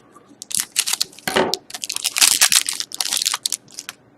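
Hockey card pack wrapper being torn open and crinkled by hand, an irregular run of crackling rips and rustles.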